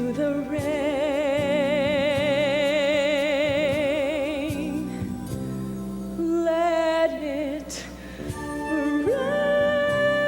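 A woman's voice holds a long, strongly wavering note over a theatre orchestra, then sings a shorter held note. The orchestra closes on steady sustained chords near the end.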